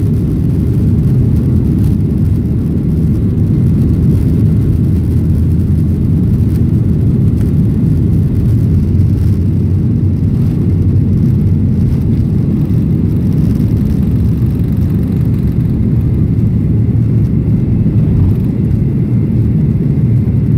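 Boeing 737-800's CFM56-7B turbofan engines at takeoff thrust, a loud, steady low roar heard inside the cabin, through the takeoff roll and liftoff.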